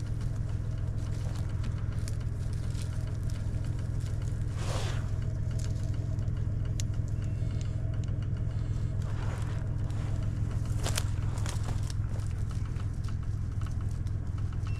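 Vehicle engine running at a steady low drone, with a few brief knocks over it.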